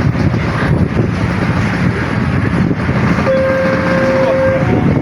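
Steady rumble of a passing train, with one steady horn note sounding for over a second about three seconds in and a higher note starting just before the end.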